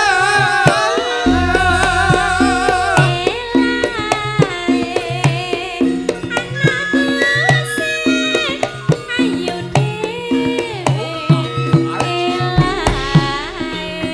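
Live Javanese dance music: a hand-drum (kendang) rhythm with deep bass notes under a woman singing with a wavering, ornamented voice into a microphone.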